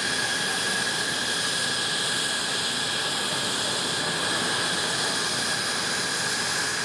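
F-16 fighter's General Electric F110 turbofan idling: a steady high whine over an even rushing hiss.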